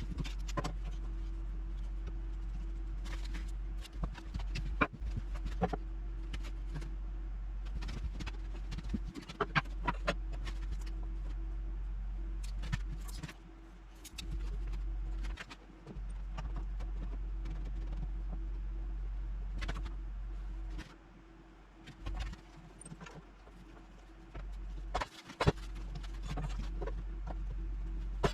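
Scattered clicks and knocks of things being handled over a steady low hum that drops out a few times.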